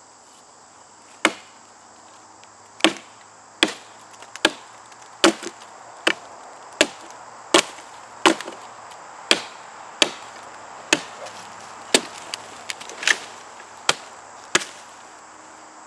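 Tomahawk chopping through the base of a small sapling about an inch across: a steady run of about seventeen sharp chops, a little faster than one a second, starting about a second in.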